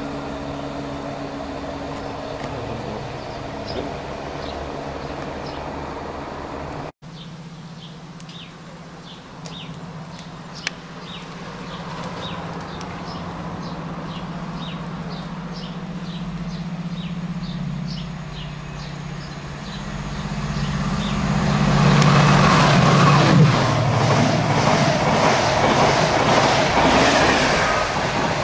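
A Class 168 diesel multiple unit's engine running steadily at the platform. After a cut, a diesel locomotive-hauled train approaches, its engine note slowly rising, then passes loudly at speed with a rushing wheel-and-rail noise over the last several seconds.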